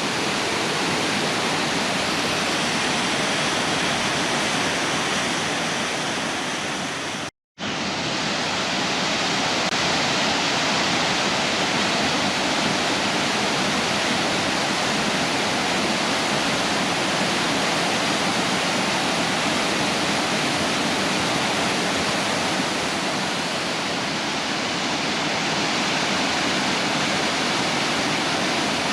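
Waterfall in full flood after heavy rain, raging: a steady, loud rush of falling water. The sound drops out for about half a second about seven seconds in.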